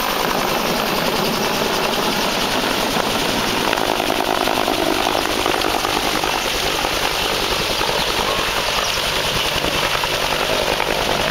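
Marine AH-1W SuperCobra attack helicopter flying low overhead: a steady, loud rotor and turbine noise, mixed with the dense rush of its rotor wash blowing debris about.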